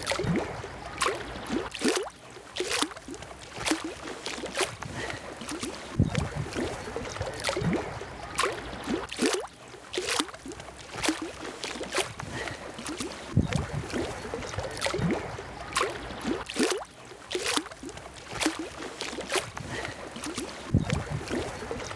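Small waves lapping and slapping at the water's edge, irregular splashes about once or twice a second, with scattered light clicks.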